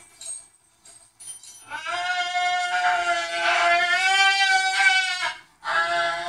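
A cockatoo screaming at wild birds outside: one long, pitched, wavering call of about four seconds, then a second call starting just before the end.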